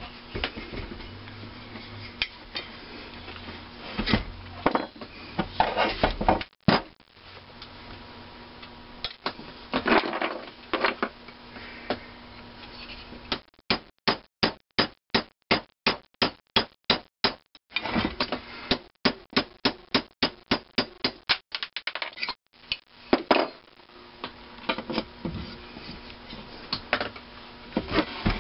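Two runs of quick, evenly spaced metal-on-metal blows, about six a second, on a rod driving a sizing ball through a thin-wall bronze valve guide liner in a McCormick-Deering engine cylinder head. This sizes the liner, which was still too tight on the valve stem. Scattered knocks and clatter of tools and the head being handled come before and after the runs.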